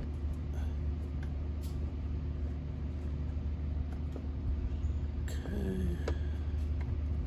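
Steady low rumble with a few faint clicks of plastic as a factory fog light housing is pushed and worked loose from the bumper.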